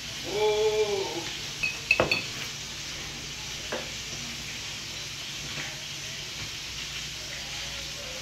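A metal fork clinks sharply a few times in quick succession about two seconds in, with one fainter clink shortly after, as pickle slices are set onto a tortilla on a plate. Just before the clinks, a short pitched note rises and falls.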